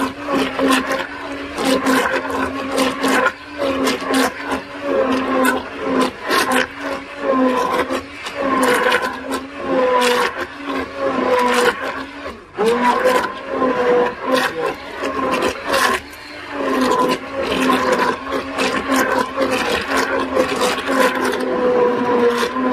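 Handheld stick blender running in a stainless steel pot of raw soap batter: a steady motor whine with frequent clicks and knocks of the blender head against the pot, easing off briefly a few times. This is the batter being blended toward trace for hot process soap.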